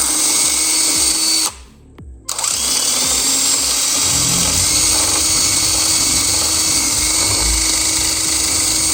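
Power drill boring into a metal lock cylinder with a small bit, drilling it out because no key will turn it. It runs steadily, stops briefly about a second and a half in, then starts again and runs on.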